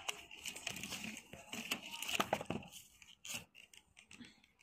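Light clicks and knocks of hard plastic tubs being handled on a store shelf, busiest about two seconds in, over a faint murmur of voices.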